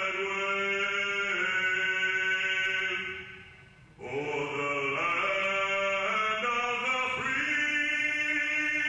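A slow patriotic song sung in long held notes. One phrase fades out about three and a half seconds in, and the next begins half a second later.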